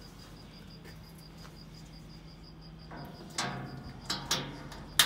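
Sharp metallic clicks and clacks of a steel toggle latch on a spreader's lid being worked by hand, clustered in the last two seconds, the sharpest snap about five seconds in. A faint, evenly repeated high chirp runs underneath.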